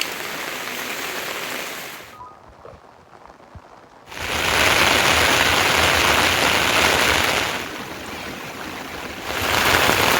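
Heavy rain falling in a steady hiss. It drops away sharply about two seconds in, comes back louder about four seconds in, and dips again briefly near the end.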